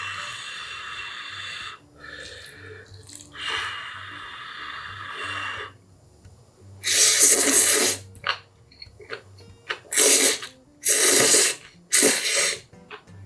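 A person blowing on a chopstick-load of Chapagetti noodles to cool them, two long steady breaths, then slurping the noodles in with four loud, short slurps in the second half.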